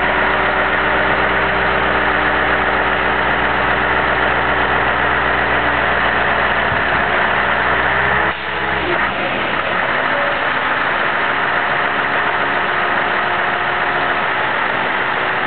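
Scania 143H truck's V8 diesel running steadily while it drives the hooklift, pulling a machine flatbed loaded with an excavator up onto the truck. About halfway through the sound changes abruptly, its deepest part dropping away, and then runs on steadily.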